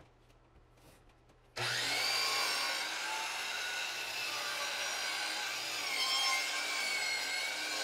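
DeWalt sliding compound miter saw starting about a second and a half in, its motor spinning up to a steady high whine, then crosscutting through a plywood floating shelf.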